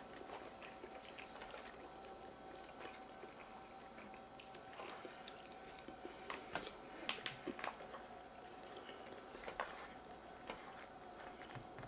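Faint chewing and the soft scrape and tap of plastic forks in foil takeout trays, a scatter of small clicks that bunch up between about five and eight seconds in, over a faint steady hum.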